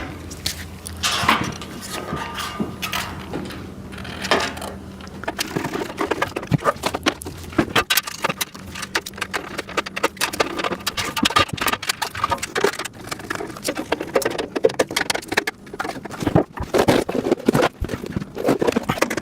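Plastic parts bins and rack pieces clicking and clattering as they are handled and fitted onto the rack, with many quick knocks that grow busier partway through.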